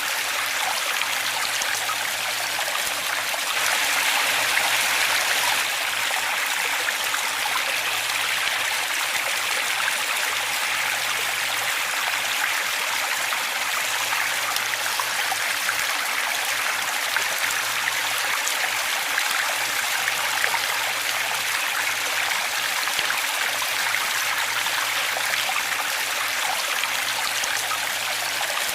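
Waterfall: a steady rush of falling water, an even hiss with almost no low rumble, swelling slightly about four seconds in.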